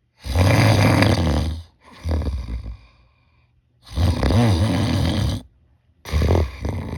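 A person snoring with the mouth fully sealed by an anti-mouth-opening band: two long, loud snores, each followed by a shorter, softer one. The snore still vibrates through both the mouth and the nose, so the band does little to stop it.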